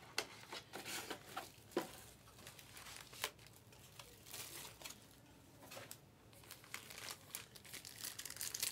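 Plastic shrink-wrap from a trading-card box crinkling and rustling as it is pulled off and handled, in scattered faint crackles with a few sharper clicks.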